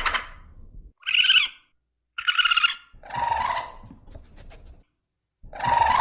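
Raccoon vocalizing: a series of short, high-pitched cries, each under a second long and about a second apart, with a few faint clicks between them.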